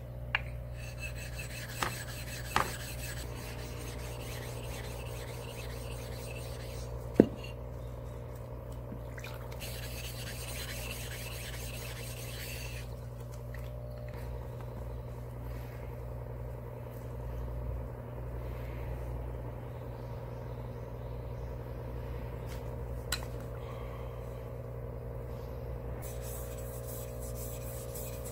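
Wet whetstones being worked: a stone rubbed on the whetstone, then a deba knife blade stroked on it near the end, with gritty rubbing and several sharp knocks, the loudest about seven seconds in. A steady low hum runs underneath.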